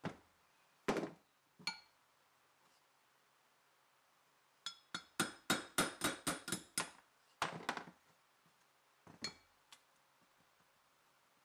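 Steel hammer driving a retaining pin out of a cast-iron handwheel hub: a run of about a dozen quick, ringing metal-on-metal blows, about five a second, with a brief pause before the last few. Earlier come two single clanks of heavy iron parts set down on the wooden bench, and near the end a couple of lighter taps.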